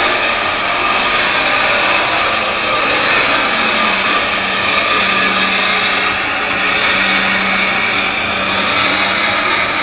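Heavy-duty lathe machining a steel dryer shell roll: a steady, loud machine noise with a constant low hum.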